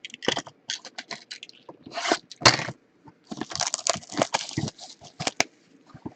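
A cardboard retail box of trading-card packs being torn open and the packs pulled out: a run of tearing, crackling and rustling with sharp clicks, busiest a little past halfway.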